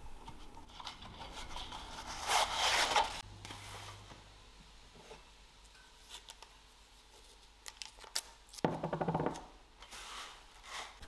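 Short bursts of rubbing and scraping from hand work on the bench, a couple of seconds in and again near the end. The later burst is blue masking tape pulled off its roll, heard as a quick run of ticks.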